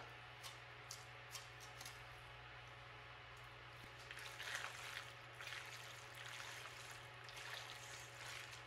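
A chef's knife ticking against a cutting board a few times as cooked lobster is chopped. About four seconds in, a spatula starts stirring the lobster chunks into thick cheese-sauced macaroni in an enamelled pot, a faint, soft, wet stirring.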